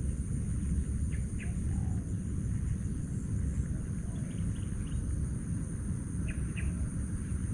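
Rural field ambience: a steady high-pitched insect drone with a few short bird chirps, a pair about a second in and another pair near the end, over a constant low rumble.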